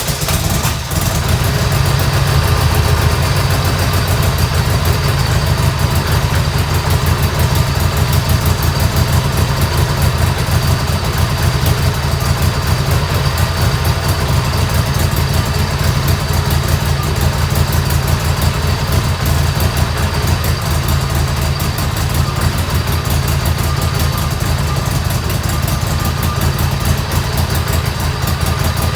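1986 Harley-Davidson Sportster 883's air-cooled Evolution V-twin, just started, idling steadily as it warms up on fresh oil.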